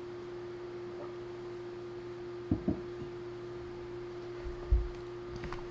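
A steady electrical hum with a single tone, and a few soft knocks: two close together about halfway through, a heavier low thump a little later, and faint clicks near the end.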